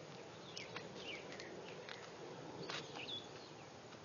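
Quiet outdoor background with small birds chirping faintly and a few faint clicks.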